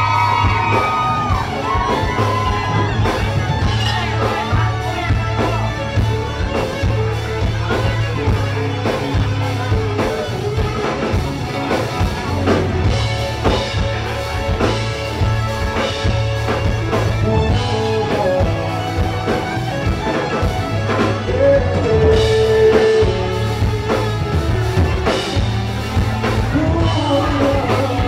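Live rock band music with singing: drums, bass and guitar under a sung melody, recorded loud from among the audience.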